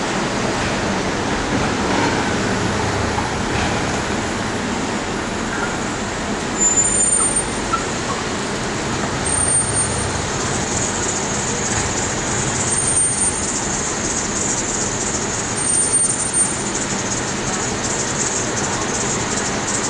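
Steady city street traffic: cars and a pickup truck driving through an intersection, with a few brief louder swells as vehicles pass.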